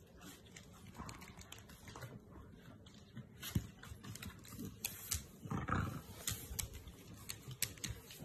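Two miniature bull terriers play-fighting: low growls and grunts with scuffling and sharp knocks. The loudest growl comes about five and a half seconds in.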